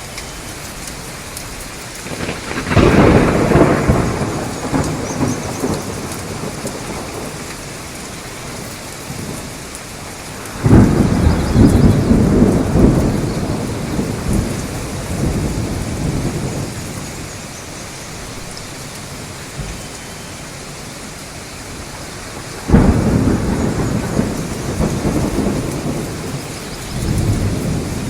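Steady rain falling through a thunderstorm. Three loud claps of thunder break in suddenly, a few seconds in, about eleven seconds in and near twenty-three seconds, and each rolls off over several seconds. A softer rumble follows near the end.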